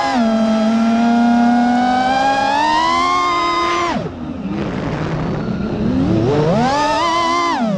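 Vifly X150 FPV quadcopter's brushless motors whining. The pitch rises slowly, then falls sharply about four seconds in as the throttle is cut, wavers low for about two seconds while the quad tumbles, climbs steeply back up and drops again near the end.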